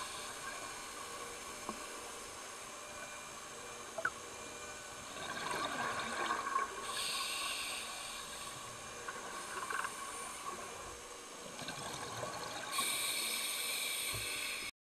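Underwater sound of a scuba dive: a steady hiss with scattered clicks, and a diver's exhaled regulator bubbles rushing in two longer bursts, about seven and thirteen seconds in. The sound cuts off suddenly near the end.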